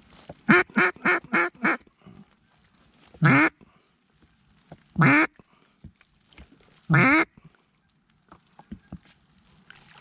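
Mallard hen quacks blown on a duck call: a quick run of five short quacks, then three longer single quacks about two seconds apart.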